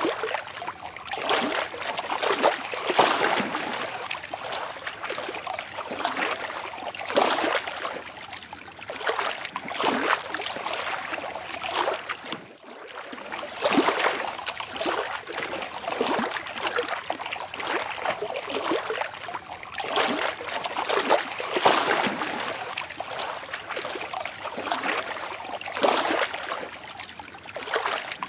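Lake water lapping and splashing in irregular surges every second or two, like small waves against a shore or hull, with a brief lull about twelve seconds in.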